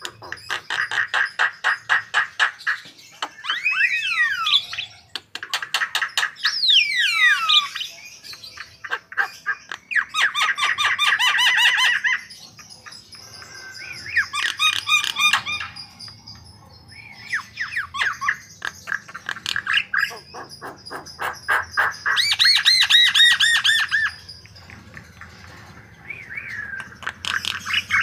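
Javan myna (jalak kebo) singing loudly: phrases of harsh, fast chattering trills and rattles, mixed with whistled notes that slide up and down, each phrase a second or two long with short pauses between.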